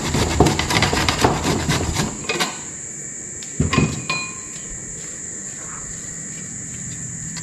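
Kitchen knife chopping ginger rapidly on a chopping board, stopping about two and a half seconds in. About a second later comes a single metallic clink that rings briefly.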